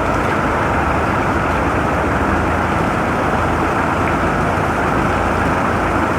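Heavy rain falling steadily: a dense, even rushing noise that does not let up.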